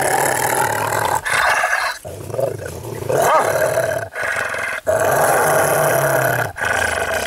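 A large dog growling with its teeth bared: several long, low growls broken by short pauses, quieter around the middle.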